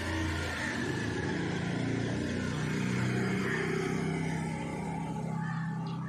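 A motor vehicle's engine running with a steady low hum, a little louder in the middle.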